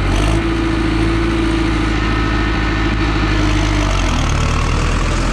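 Farmtrac 6055 tractor's diesel engine running steadily at about 1700 rpm in high second gear while the tractor pulls a disc harrow. A held mid-pitched tone over the engine hum fades out about four seconds in.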